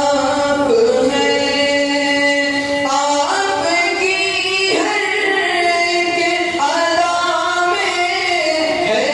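A male voice sings a manqabat, an Urdu devotional poem, into a microphone. He holds long notes that slide and step between pitches in melismatic phrases, with no instruments heard.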